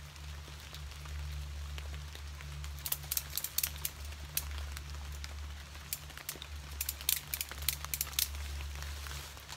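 Ratchet strap being worked at a tree to hang a hammock, giving irregular sharp clicks in two bursts from about a third of the way in to near the end, over a steady low hum.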